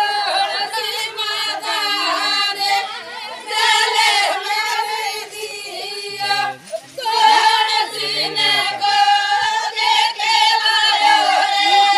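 A group of women singing a song together in chorus, with a brief break about two-thirds of the way through.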